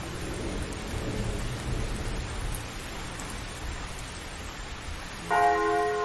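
A steady rushing hiss with a low rumble, then near the end a single strike of a large old church bell, its several tones ringing on as the loudest sound.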